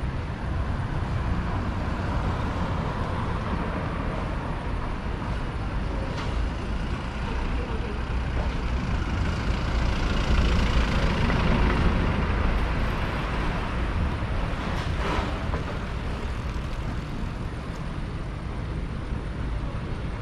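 Steady city street traffic: engines and tyres of passing vehicles, with one passing louder about halfway through.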